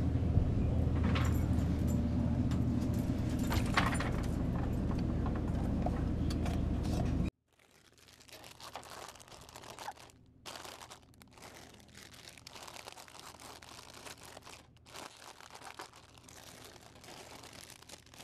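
A steady low hum for about the first seven seconds, cutting off suddenly. Then soft crinkling of chip bags and light clicks as snack packets are set into the coil spirals of a snack vending machine.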